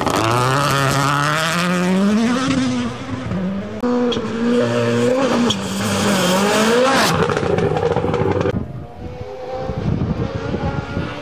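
Rally1 rally cars' turbocharged four-cylinder engines under hard acceleration on gravel. An engine revs up steadily, then a second one rises and drops repeatedly through gear changes. Near the end a quieter engine is heard.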